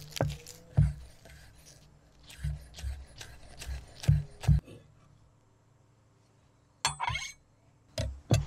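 Kitchen utensils knocking on a cutting board and bowl while a salad is prepared: a run of sharp knocks, about two or three a second, a pause, then a short clink and two more knocks near the end.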